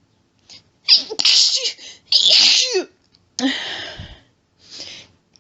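A woman sneezing in a rapid allergic fit. There is a quick catch of breath, then two loud voiced sneezes about a second apart, then a third, breathier sneeze-like burst, and a short faint breath near the end.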